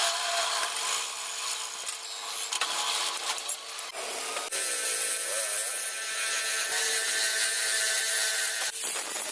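A power tool grinding or sanding against the workpiece: a steady, hissing, abrasive sound that changes abruptly about four seconds in and again near the end, as if between spliced clips.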